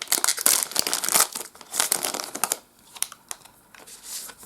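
A foil booster pack wrapper being torn open and crinkled, a dense crackle for about two and a half seconds, then a few faint clicks.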